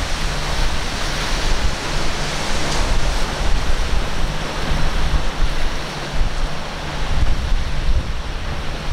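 Rough surf breaking and churning, with wind buffeting the microphone: a steady rushing noise that swells and eases.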